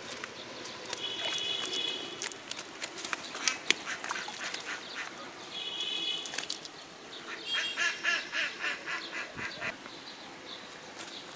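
Bird calls, likely a duck's: a short call about a second in, another about six seconds in, then a fast series of about four calls a second near the end. Under them is a light patter of clicks and rustles from fish flapping in a cast net on the grass.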